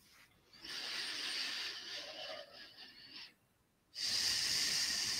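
A person's slow breathing picked up close on a microphone: two long, quiet breaths, each lasting about two and a half seconds.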